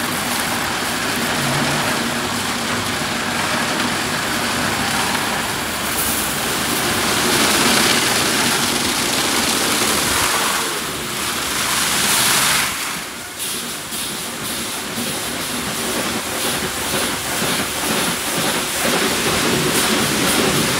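Christ Genius gantry car wash running: rotating brushes sweeping over a car body amid a steady rush of water spray, dipping briefly about two-thirds of the way through.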